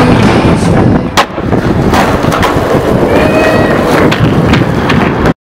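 Skateboard wheels rolling on concrete with sharp board clacks and slaps, the loudest about a second in. The sound cuts off abruptly near the end.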